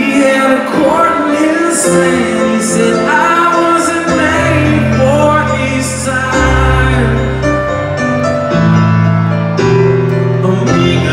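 A singer and a grand piano performing a song live: held piano chords under a sung melody that glides between notes, heard from the arena crowd.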